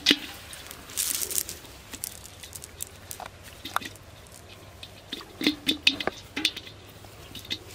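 Cast net being handled on grass: irregular rustles and crackles of the mesh as small fish are worked out of it, with a sharp click right at the start and a quick cluster of short rustles a little past halfway.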